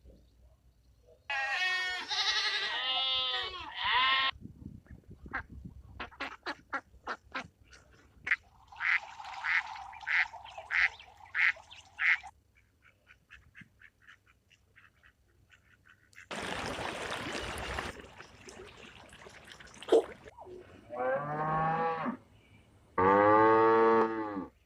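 A string of separate farm animal calls: pitched calls early on, a run of sharp clicks, then about five evenly spaced duck quacks in the middle, a hissing burst, and two more drawn-out pitched calls near the end.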